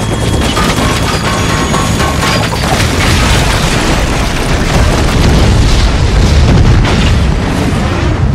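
Action-film sound mix of explosions and fire from a crashed helicopter and burning building, a continuous heavy rumble under a music score, swelling to its loudest about six to seven seconds in.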